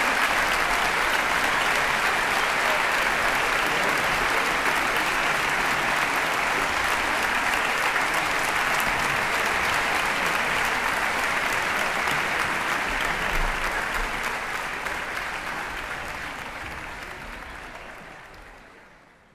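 Theatre audience applauding, steady and dense, as the concert ends; the applause fades out over the last few seconds.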